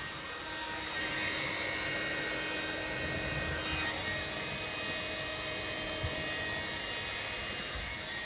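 Hair dryer running steadily: an even blowing rush with a faint motor whine, a little louder from about a second in. A brief knock about six seconds in.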